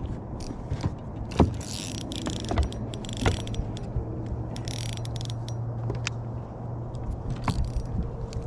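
Irregular clicks, knocks and rattles of fishing gear in a boat while a bass is fought at the net, over a steady low hum.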